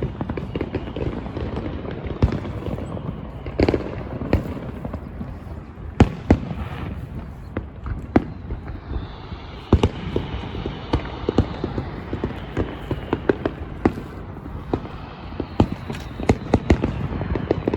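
Fireworks going off: a string of sharp, irregular pops and crackles that come thicker near the end.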